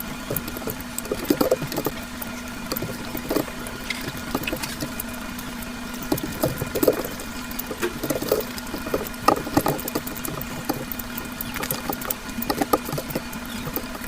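Close-up eating sounds of egg curry with rice: irregular wet chewing and mouth smacks coming in clusters every second or two, over a steady low hum.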